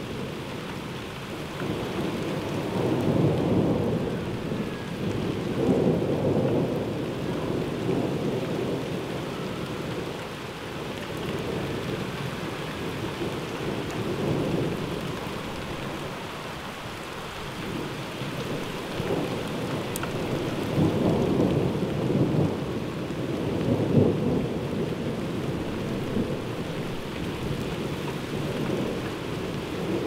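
Heavy rain falling steadily with rolling thunder. The rumbles swell and fade several times, the strongest about two thirds of the way through.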